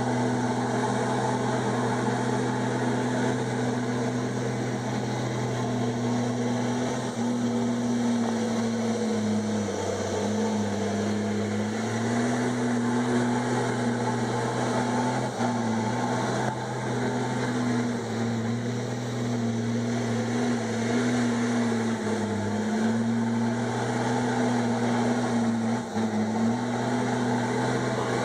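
Komatsu D51EX bulldozer's diesel engine running steadily at working speed, its pitch sagging briefly several times as the engine takes load.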